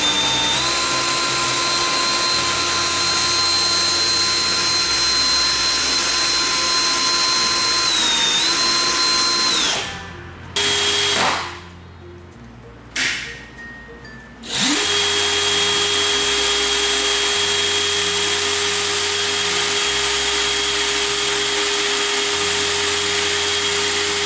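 Cordless DeWalt drill/drivers run with no load at full speed, each a steady motor whine: the small 10.8 V DCD710 runs for about ten seconds with a brief dip near the end, then two short trigger blips, then the 18 V brushless DCD791 runs steadily. Quiet background music underneath.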